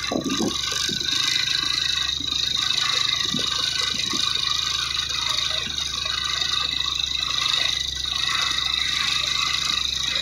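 Engine of a heavily loaded sugarcane truck labouring up a hill, a steady drone with a high whine over it, heard from close behind.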